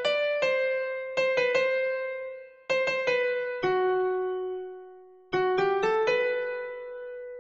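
A karaoke guide melody: the song's vocal line played alone on an electric-piano-like keyboard tone, one note at a time. Short runs of struck notes each settle onto a long, fading held note, three phrases in all.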